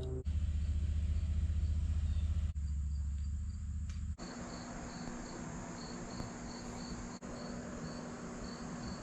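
Crickets chirping in a steady pulse, under a louder low hum and noise that change abruptly several times.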